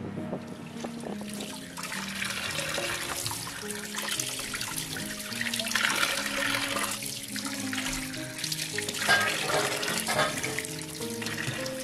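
Tap water running and splashing over fish pieces as they are rinsed by hand, with background music playing a slow melody underneath.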